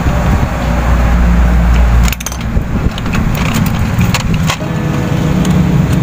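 Clicks and knocks of a screwdriver and the microwave's plastic control panel being worked loose from the cabinet, over a steady low rumble that eases about two seconds in.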